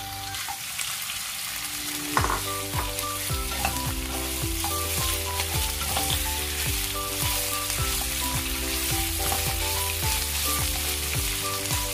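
Diced pork sizzling as it fries in hot oil in a wok with onion and garlic, stirred with a wooden spatula. Background music with a steady beat plays over it, dropping out briefly at the start and coming back about two seconds in.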